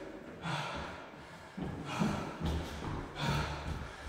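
A man breathing hard, puffing and gasping while jogging, with his footfalls thudding on a wooden floor.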